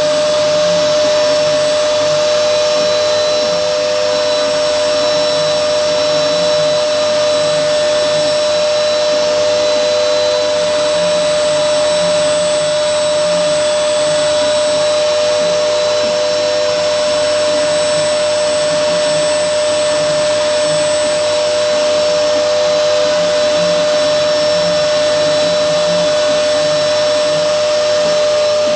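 CNC router spindle running at a constant high pitch while milling, a steady whine over a hiss with no change in speed.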